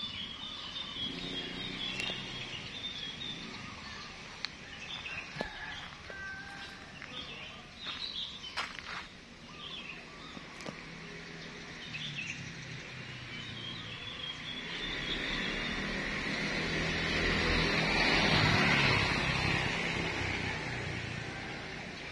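Outdoor ambience with birds chirping and trilling, and a few short clicks. In the second half a broad rushing noise builds over several seconds and fades again near the end.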